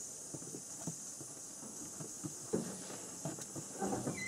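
Open wood fire in a hearth crackling faintly: scattered soft pops and clicks over a steady hiss.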